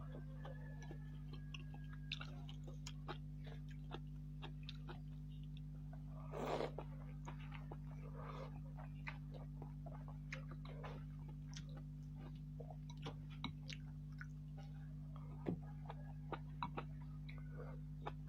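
Close-miked chewing of chicken noodles and meatballs: many small wet mouth clicks and smacks at an irregular pace, with a brief louder slurp-like noise about six seconds in.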